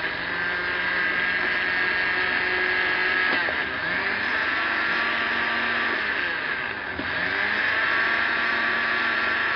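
Electric blender running, grinding onion with a little water into a paste. Its steady motor whine shifts in pitch twice, about three and a half and seven seconds in.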